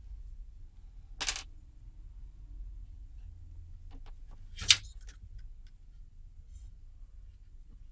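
Handling noise on a workbench as a circuit board and hand tools are moved about: a sharp click about a second in and a louder one a little past the middle, with a few light ticks, over a faint low hum.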